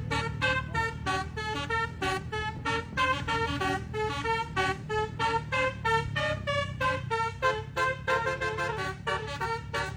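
Tour bus's basuri 'telolet' musical horn playing a quick tune of short, separate notes, several a second, over a steady low hum.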